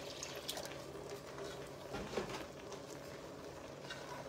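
Milk poured from a jug into a saucepan of thickening Alfredo sauce, then the sauce stirred with a spatula: faint liquid pouring and stirring sounds over a low steady hum.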